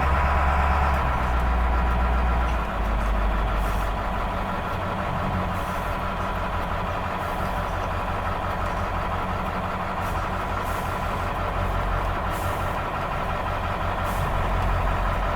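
School bus diesel engine running steadily. Its low note drops about two and a half seconds in, then it keeps idling.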